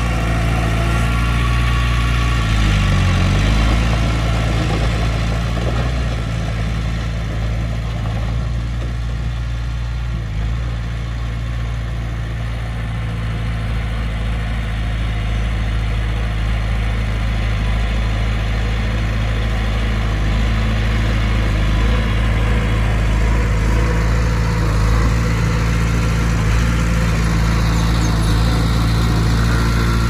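Bulldozer's diesel engine running steadily, its note dipping briefly about three seconds in.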